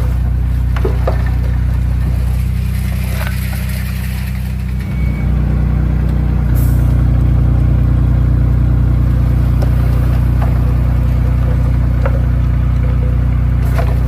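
Komatsu D31P bulldozer's diesel engine running steadily, easing off for a few seconds and then louder and stronger from about six and a half seconds in, with occasional sharp clicks.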